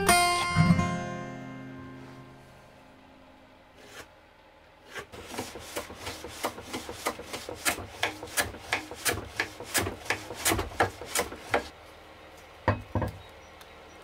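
Acoustic guitar music fades out at the start. Then a hand plane is pushed repeatedly along a shooting board, trimming a cherry board: a regular run of rasping strokes, about two or three a second, followed by one louder knock near the end.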